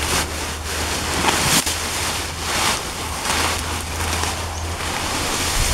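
Rustling of cut grass and fallen leaves as a hand parts and rummages through them: a run of swishes, about one or two a second, over a steady low rumble.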